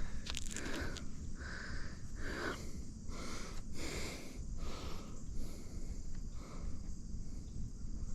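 A mountain biker breathing hard while riding, a short breath about every second, over a low steady rumble from the trail ride, with a few light rattling clicks about half a second in.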